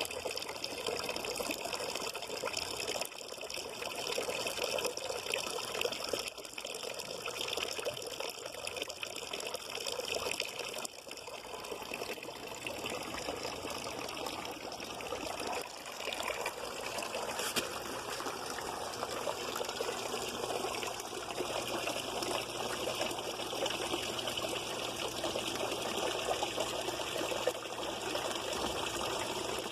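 Running water trickling and splashing steadily, with no pauses.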